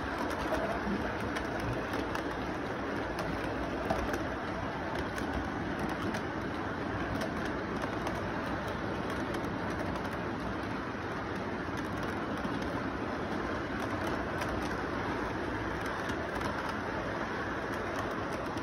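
Model train cars rolling steadily along the layout track, a continuous rumble with faint scattered clicks from the wheels on the rails.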